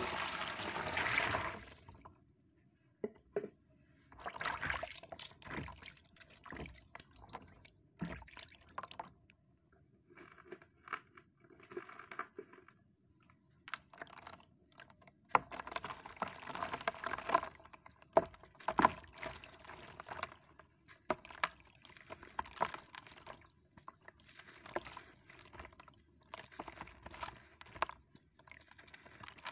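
Water pouring into a plastic basin for about two seconds, then hands crushing and crumbling a dry sandy block in the water: irregular gritty crunches and crackles mixed with splashing and the patter of falling bits.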